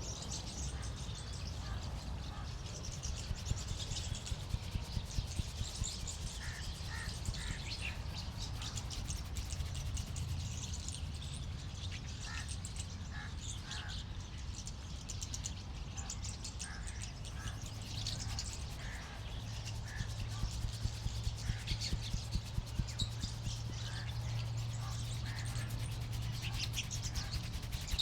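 Rhythmic hand tapping of a barber's head massage, in two runs of about two or three strokes a second, over birds chirping and a steady low hum.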